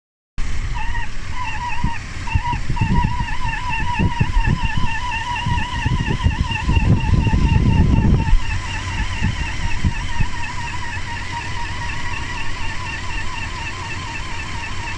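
1998 Toyota 4Runner's 3.4-litre V6 running with a steady high whine from the engine bay that wavers rapidly up and down. The whine's source is not pinned down: the AC compressor, water pump and power steering pump are all suspects. Irregular low rumbling comes and goes between about two and eight seconds in.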